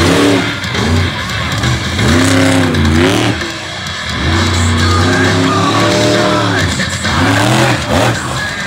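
Monster truck engine revving up and down several times as the truck drives and launches onto a pile of crushed cars. Music plays over the arena PA at the same time.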